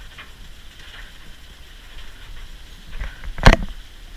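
A low background rumble, with a single loud knock about three and a half seconds in.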